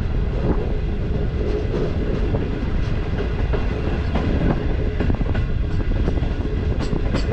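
Passenger coaches of an express train running at speed on the rails, heard from the coach door. A steady, heavy wheel-and-track rumble with a faint steady hum and scattered clicks of the wheels over rail joints.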